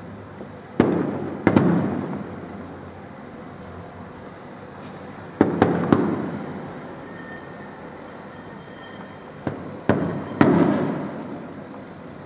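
Aerial firework shells bursting in three clusters of two or three sharp bangs, about four to five seconds apart. Each bang is followed by a long echo that dies away over about a second.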